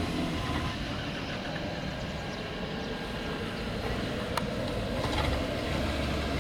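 Pilatus PC-12 NG's single Pratt & Whitney PT6A turboprop engine running steadily at ground idle while the aircraft taxis and parks, a low rumble with a faint steady high tone over it.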